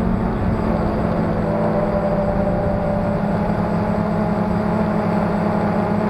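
Phantom quadcopter's motors and propellers, running under Pixhawk flight control and heard from a camera mounted on the drone: a steady multi-tone buzzing hum whose pitches drift slightly as the throttle changes.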